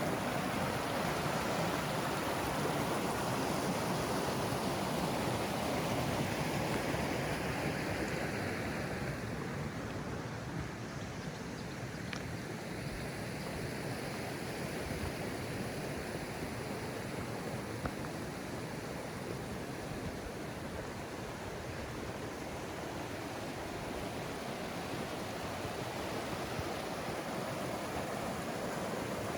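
Rushing water of a mountain stream, a steady even rush that dips a little in the middle and grows louder again near the end.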